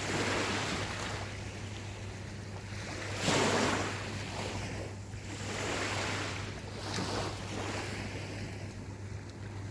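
Small ocean waves breaking and washing up a beach, the surf rising and falling in surges, with the loudest wave breaking about three seconds in. A steady low hum runs underneath.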